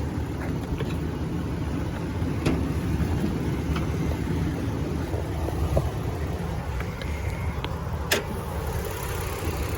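2017 Toyota Tacoma's 3.5-litre V6 idling steadily with the hood open, with a few light clicks and one sharper knock about eight seconds in.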